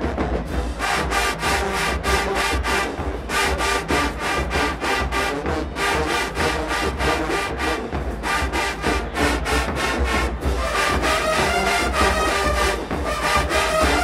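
HBCU marching band of brass and drumline playing a rap song arrangement. Horns and sousaphones play over a steady drum beat, with the horns dropping out for short breaks several times while the drums keep going.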